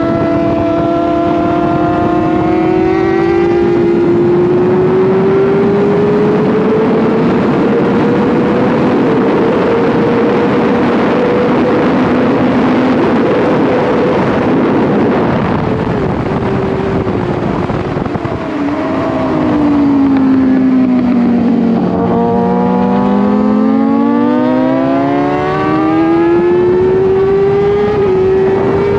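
600cc racing motorcycle engine heard on board at high revs under heavy wind rush. The pitch climbs slowly and holds high, drops sharply about two-thirds of the way in as the bike slows, bottoms out, then rises again as it accelerates hard.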